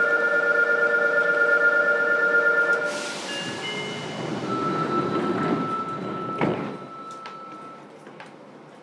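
Electronic chime tones sounding while the subway train stands at the station, followed by a single long tone and a thud of the doors closing about six and a half seconds in.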